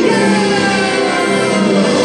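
Loud, steady music from the castle show's soundtrack: held notes under a melody line that slides slowly down in pitch.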